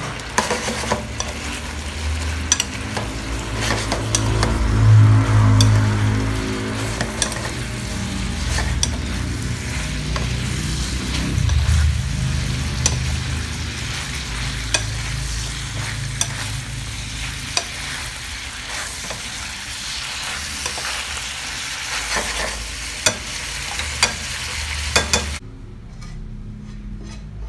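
Buttered shrimp sizzling in a stainless steel frying pan while a utensil stirs them, clicking and scraping against the pan many times. The sizzle cuts off sharply near the end.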